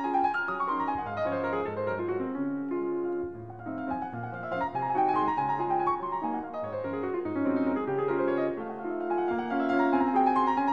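Solo piano music playing flowing runs of notes.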